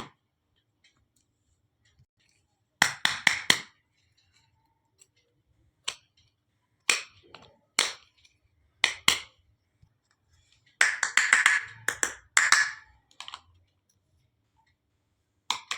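Small hard clicks and clacks of miniature toy kitchen pieces being handled and set down: scattered single taps, with a quick run of clicks about 3 s in and another cluster about 11 s in.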